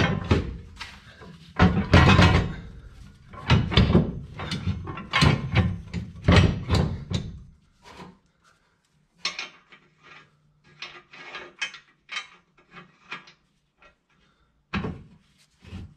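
Steel bolts and the steel center section of a Draw-Tite under-bed gooseneck hitch clanking and rattling as they are handled and threaded by hand into the truck frame. It is a dense run of loud metal clatters for about the first half, then lighter scattered ticks and rattles over a faint low hum, with a louder clatter again near the end.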